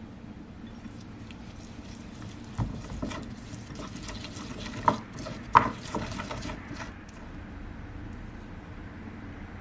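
A spoon stirring a thick ground-sesame and sesame-paste mixture in a ceramic bowl, scraping against the bowl, with sharp clinks of the spoon on the bowl about two and a half, five and five and a half seconds in.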